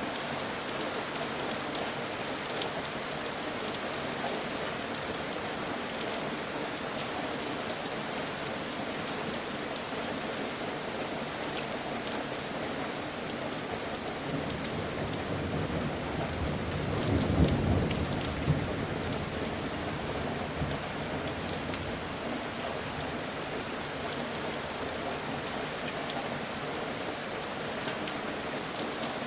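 Steady rain falling and pattering. About halfway through, a low rumble of thunder swells and fades over several seconds, with a couple of sharper cracks at its peak.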